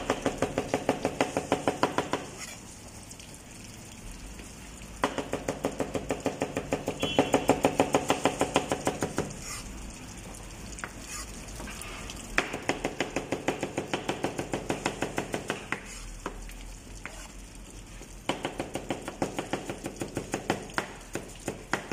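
Chef's knife rapidly chopping carrots on a plastic cutting board: four runs of fast, even strokes, about six a second, with pauses of a few seconds between them.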